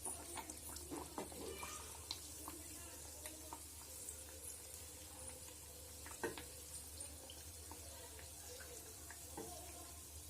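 Moong dal kachoris deep-frying in oil in a kadai on a low flame: a faint, steady sizzle with scattered small pops and taps, and one sharper knock about six seconds in.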